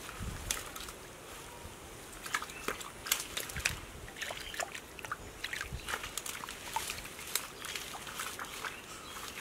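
Hands groping through wet mud and shallow muddy water while feeling for fish, with irregular squelches, sloshes and small splashes.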